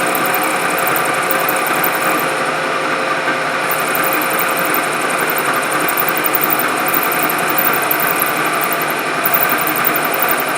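Knee milling machine running with its cutter taking a cut while the table feeds. It is a steady whir and hiss with several fixed tones and no break.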